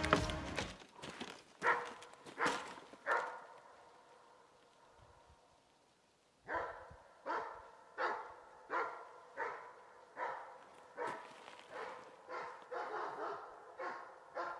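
German shepherd barking repeatedly at a porcupine it has found. About four barks, a few seconds' pause, then steady barking about one and a half a second, fairly faint.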